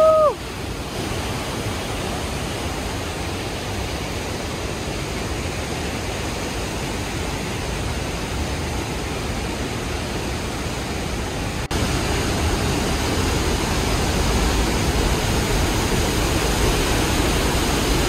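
Pailón del Diablo waterfall: a steady, even rush of falling water. About twelve seconds in it gets louder, with more low rumble.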